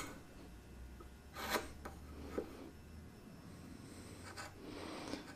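A few faint, short scraping strokes of a narrow metal hand tool working the wood between dovetail tails, trimming the joint to its line, with a faint low hum under the first few seconds.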